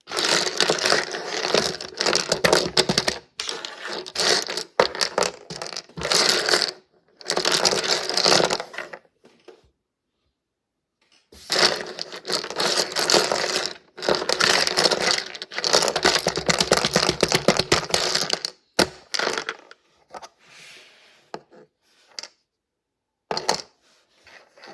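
Resin slime being squeezed and pressed by hand, giving a dense crackle of tiny clicks and pops in long stretches. The crackle stops for a couple of seconds in the middle, then resumes and thins out to a few scattered clicks near the end.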